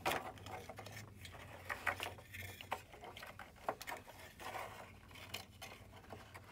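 An accordion-folded paper strip rustling and crinkling as it is handled and bent round into a rosette, with scattered light clicks of the folds. A faint low hum runs underneath.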